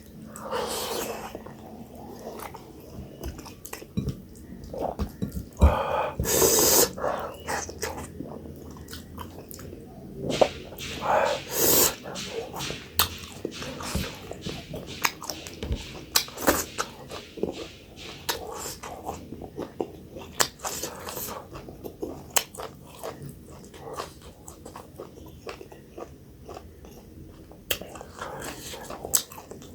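Close-up eating sounds of a person chewing and biting millet dhindo with dried buffalo meat and pumpkin curry: many short, wet mouth clicks, with a few louder, longer mouth sounds around a quarter of the way in and again near the middle.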